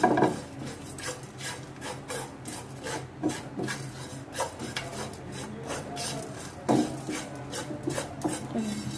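Silicone spatula scraping and stirring cumin seeds and ground garam masala around a nonstick frying pan as the spices roast, in repeated short scraping strokes.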